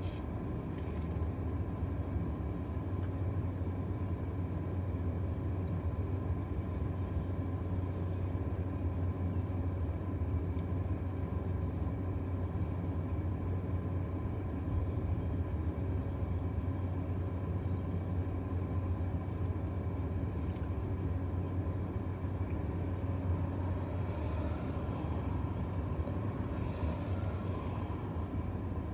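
Steady low rumble and hum of a vehicle, even throughout with no sharp claps or bangs.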